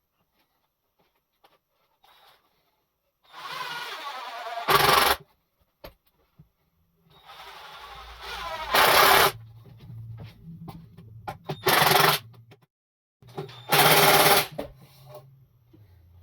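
Power screwdriver or impact driver driving screws into larch timber in four bursts, each run ending in a louder hammering rattle as the screw seats.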